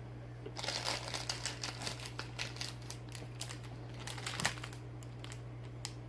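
A Pop-Tart's foil wrapper being handled and crinkled, a dense run of crackles that trails off after about four seconds.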